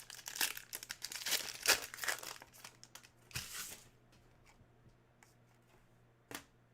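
Plastic wrapper of a Panini NBA Hoops trading-card pack being torn open and crinkled for about four seconds, followed by a single sharp click near the end.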